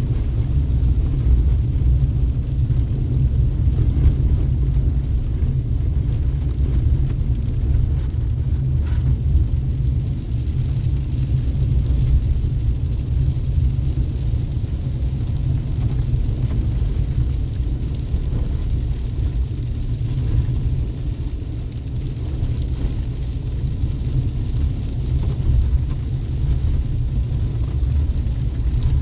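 Chevy Colorado Z71 pickup driving: a steady low rumble of engine and road noise.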